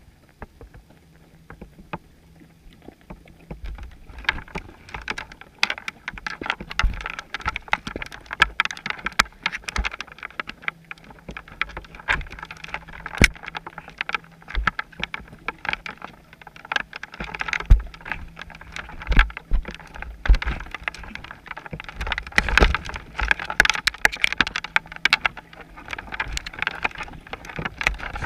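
Underwater clicking and knocking picked up by a GoPro in its waterproof housing on a chum pot, among feeding scup (porgies). The clicks are sparse at first and become a dense, irregular crackle about four seconds in, with occasional low thuds.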